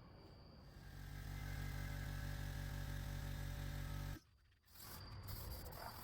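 A motor running steadily with a low hum, which comes up under a second in and cuts off abruptly about four seconds in; a hissing noise follows near the end.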